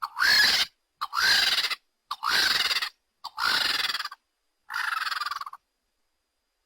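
Gallimimus dinosaur call sound effect: five high-pitched calls about a second apart. Each opens with a short rising yelp and runs into a longer cry with a rapid flutter.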